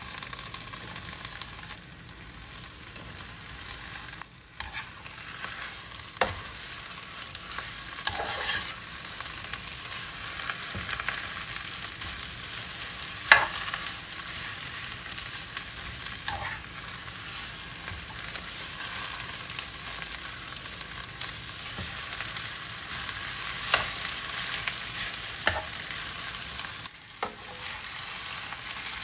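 Green leaves and dried red chillies sizzling as they stir-fry in a non-stick wok: a steady frying hiss with scattered scrapes and taps of the spatula against the pan. The hiss drops out briefly twice, about four seconds in and near the end.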